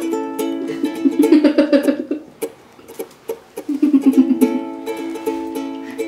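Background music of plucked strings, with a louder wavering passage about a second in and again around four seconds.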